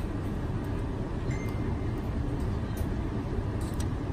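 A steady low background rumble, with a few faint light ticks from handling small tools and film on the mold.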